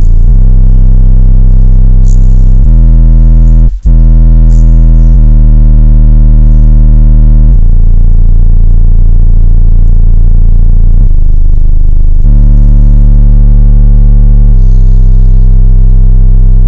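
Van car-audio system playing bass-heavy music through a pair of 15-inch subwoofers: deep held bass notes that jump to a new pitch every few seconds, loud enough to push the recording to full scale. The sound cuts out for an instant about four seconds in.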